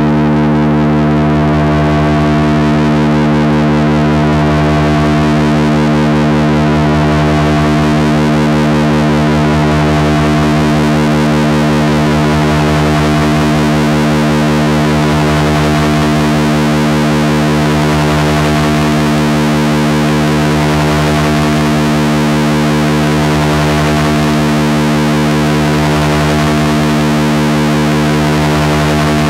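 Electronic noise drone from a synthesizer run through a chain of distortion and effects pedals: a loud, unbroken low chord thick with overtones under a bed of distorted hiss. The high hiss fills in over the first eight seconds or so, then the drone holds steady.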